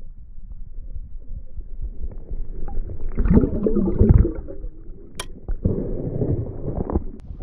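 Water sloshing and gurgling, heard muffled through a camera held underwater during a trout release, with a stronger surge about three to four seconds in and a sharp click about five seconds in.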